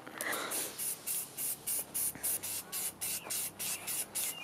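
Primer being sprayed onto a car's rear wing in short, even hissing bursts, about four a second.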